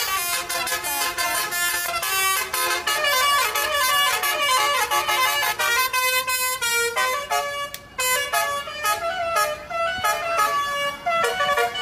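Basuri-type telolet multi-tone air horn on a Dewi Sri bus playing a rapid melody, its notes jumping in pitch several times a second, with a short break about eight seconds in.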